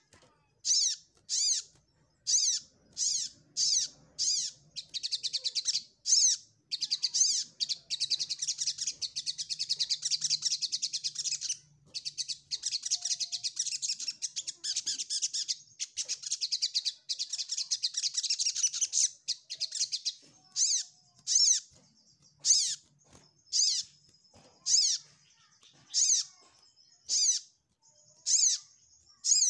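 Olive-backed sunbird (sogok ontong) calling: sharp, high chirps repeated about once or twice a second, breaking into a long, fast twittering song from about five to nineteen seconds in, then spaced chirps again. This is the challenging song used to draw a rival and provoke other sunbirds into singing.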